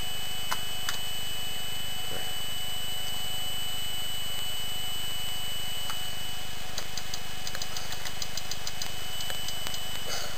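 Computer cooling fans (the power supply fan and the CPU cooler fan) running steadily on a bare motherboard: an even hum with a thin steady high-pitched tone over it and a few faint ticks.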